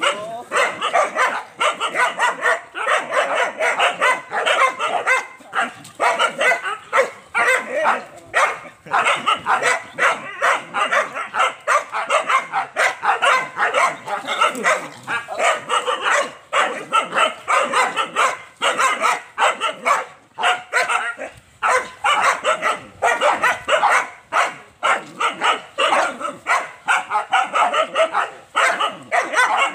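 Young dogs barking rapidly and without let-up, with yips and whines mixed in, as they bay at a tethered young wild boar.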